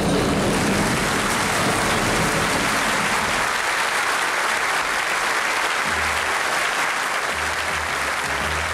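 Audience applauding steadily. Music comes in under it about six seconds in, at first only as repeated low bass notes.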